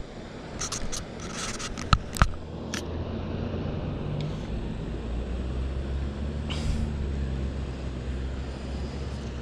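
A few clicks and two sharp knocks about two seconds in, then a steady low engine hum from about four seconds on, the sound of a motor vehicle running nearby.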